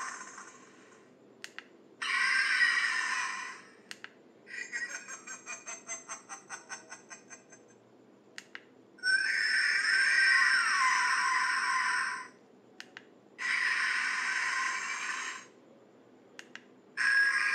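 Bootleg Ultraman Taro badge toy playing kaiju monster cry sound effects through its small, tinny speaker, four in turn with a button click before each. The second cry is a rapid pulsing, about five pulses a second.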